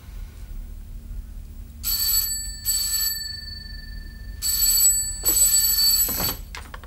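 Desk telephone ringing in two double rings, ring-ring, pause, ring-ring. The second ring of the second pair is cut off as the handset is lifted, with a short clatter.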